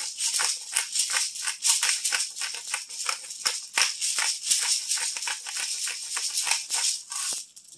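Ground black pepper being shaken out of a spice shaker, a fast, even rattling at about five shakes a second that stops shortly before the end.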